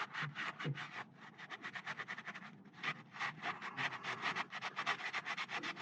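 Ratchet wrench clicking in quick, even runs of about eight clicks a second, fainter for a stretch in the middle.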